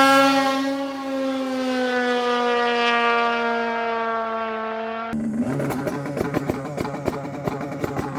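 Polaris Boost snowmobile's turbocharged two-stroke engine revving up sharply and then holding one steady high pitch for about five seconds, sagging only slightly. About five seconds in it cuts to rougher, crackling running at a lower pitch that climbs again.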